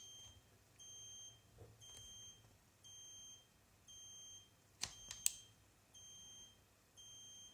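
Faint electronic beeper sounding a steady half-second beep about once a second. A couple of sharp clicks come about five seconds in.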